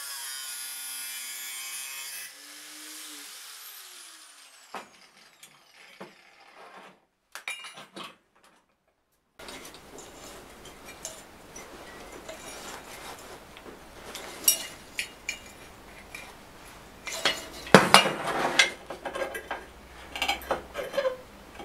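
Cordless angle grinder grinding a steel bar with sparks flying, then released and spinning down with a falling whine about two seconds in. After that come scattered clicks and knocks of metal parts and tools being handled on a workbench, with the loudest clatter in the last few seconds.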